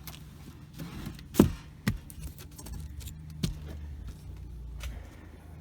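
Steady low electrical hum from a heat pump air handler whose ECM blower motor is failing to start, with a few sharp knocks, the loudest about a second and a half in.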